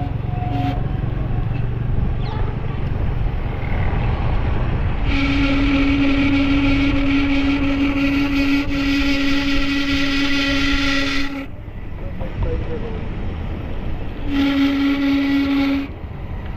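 A vehicle horn sounding: a short toot near the start, then a long steady blast of about six seconds, and a second blast of about a second and a half near the end, over a constant low rumble.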